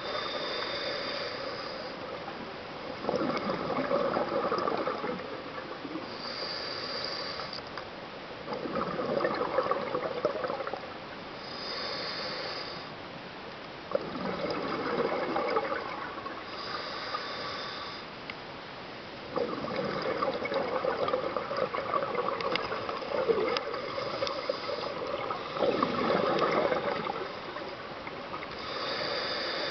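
Scuba diver breathing through a regulator underwater: a short hissing inhale through the demand valve, then a longer bubbling exhale, repeating about every five seconds.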